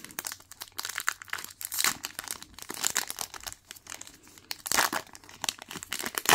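Foil trading-card pack wrapper crinkling and tearing as it is ripped open by hand: a dense run of irregular crackles, loudest a little before five seconds in, ending in a sharp rip.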